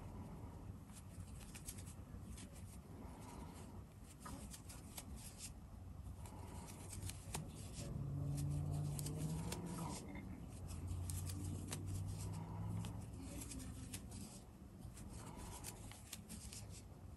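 Light rustling and soft scratchy clicks of a crochet hook and yarn being handled as single crochet stitches are worked. A low hum swells up in the middle for several seconds.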